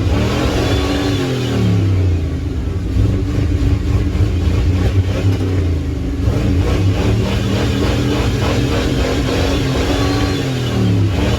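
Pickup truck engine revving hard, its pitch rising and falling.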